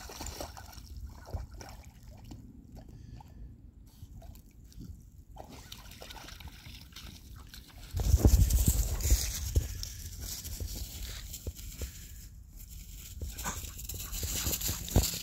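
A Boykin spaniel splashing and sloshing about in shallow pond water. About eight seconds in comes a sudden loud rush of wind and handling noise on the phone's microphone as it swings round, fading over the next few seconds.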